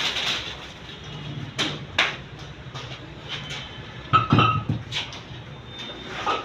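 Scattered sharp knocks and clatters, the loudest a short cluster about four seconds in, over a steady low hum.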